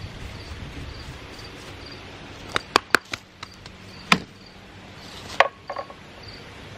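A few sharp wooden knocks and clicks, bunched about two and a half to three seconds in and again near four and five and a half seconds, over an insect chirping steadily about twice a second.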